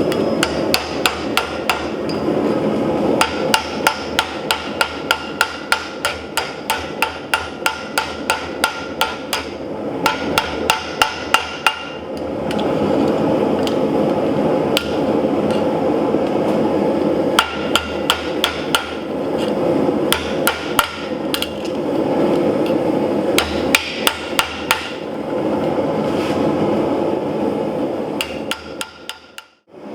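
Forging hammer striking steel on an anvil: a run of quick, even ringing blows, about three a second. After about twelve seconds a steady rushing noise takes over, with only scattered blows. The sound drops out briefly near the end.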